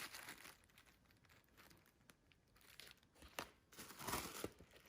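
Tissue paper crinkling as it is handled, in a few short rustles, the loudest near the end.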